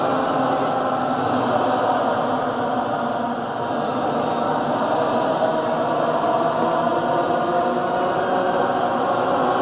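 A group of untrained voices holding long sustained notes together, a dense cluster of many pitches that drifts slightly but does not break.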